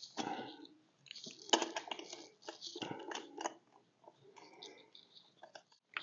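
Faint, irregular metallic clicks and scrapes of lug nuts being turned down by hand onto the studs of a wheel spacer.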